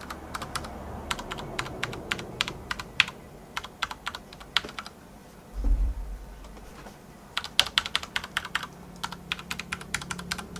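Typing on an Akko 9009 Retro mechanical keyboard with Cherry MX Brown switches, keys clacking in quick runs. The typing stops for about two seconds midway, with one low thump in the lull, then starts again. The keys sound fairly even from one to the next.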